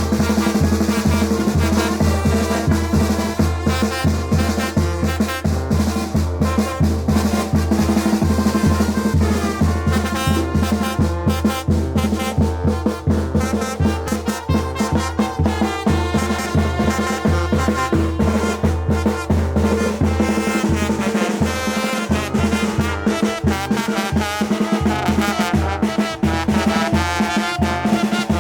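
A Mexican wind band (banda) playing a chilena: brass and wind instruments over a steady, driving drum beat.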